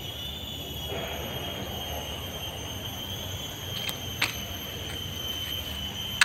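Steady high-pitched drone of forest insects, wavering slightly, with two faint clicks about four seconds in.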